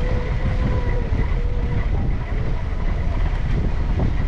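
Open safari jeep driving along a dirt forest track: a steady low rumble of engine and tyres. A faint steady whine runs over it and fades out about halfway through.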